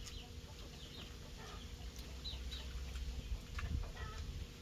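Chickens calling: a few short, high chirps, each falling in pitch, over a low rumble.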